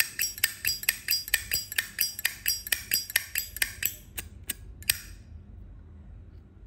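Zippo lighter's metal lid being flicked open and snapped shut over and over: sharp metallic clicks, about five a second, thinning out and stopping about five seconds in.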